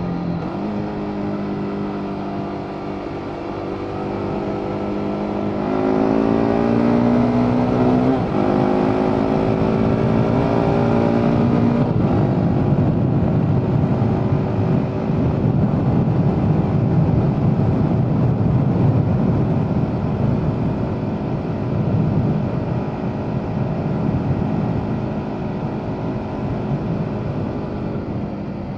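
BMW G 310 R's single-cylinder engine on its stock exhaust, heard onboard while riding. It runs steadily at first, then climbs in revs, dips briefly in pitch at an upshift about eight seconds in, and climbs again. From about twelve seconds in, wind rush over the microphone covers the engine, which comes through again faintly near the end.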